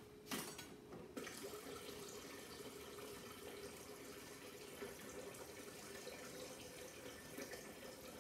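Refrigerator water dispenser running water into a container, faint and distant. It starts about a second in and runs steadily.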